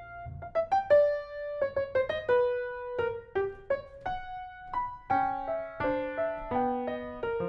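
Grand piano playing a melodic line of single notes with gaps between them, turning denser in the last couple of seconds, with several notes and chords sounding together.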